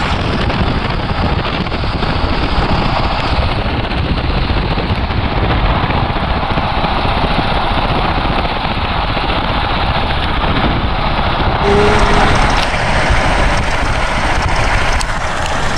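Steady road and engine noise heard inside a moving car, getting brighter about twelve seconds in.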